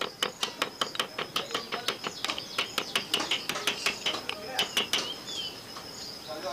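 Rivets being peened into a cooler motor's pressed-steel end cap, holding in a new bush retainer, with rapid light metal-on-metal taps of a steel rod, about five a second, stopping about five seconds in.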